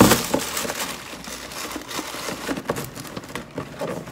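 Tissue paper and a cardboard shoe box being handled, rustling and crinkling irregularly, with a thump right at the start.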